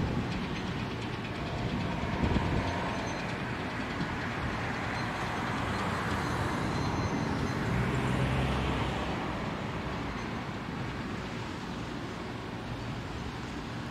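A vehicle passing: a steady rumble and hiss that builds to its loudest about eight seconds in, then eases off.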